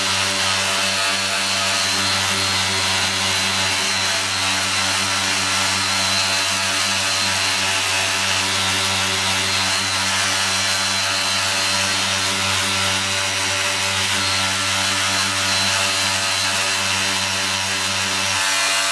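Handheld electric detail sander running with a steady, even hum and hiss as its pad sands a primed fiberglass motorcycle fairing, flattening patched pinholes.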